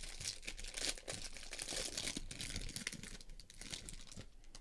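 Clear plastic wrapper crinkling and crackling as it is peeled off a trading card by hand, in quick irregular bursts that stop about four seconds in.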